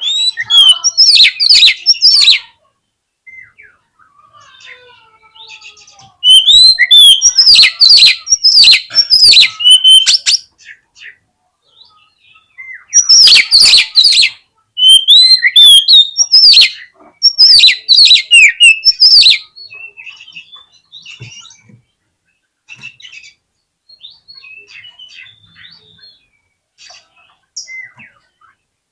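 Oriental magpie-robin (kacer) singing: three loud bursts of rapid, sharp, high, sweeping notes, the middle and last ones several seconds long, followed by only faint scattered chirps in the last third.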